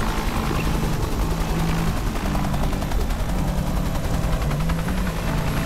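Several helicopters flying past, their rotors making a fast, steady chop.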